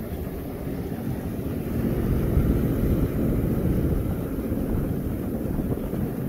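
Engine of a watercraft running at speed, with wind buffeting the microphone and water rushing past; it gets louder about two seconds in.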